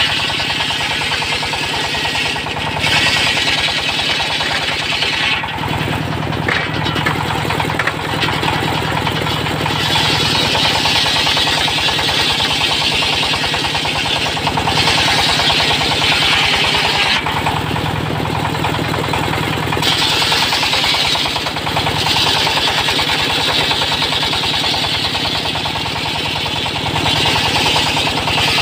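Large belt-driven circular saw blade cutting through logs in passes of a few seconds each, with short breaks between them, the teeth hissing loudly through the wood. Underneath runs the steady beat of the single-cylinder stationary diesel engine that drives the saw.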